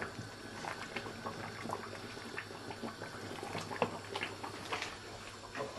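Pot of thick brown stew cow foot simmering on the stove, bubbling with many small irregular pops, with a few light knocks as it is stirred with a wooden spoon.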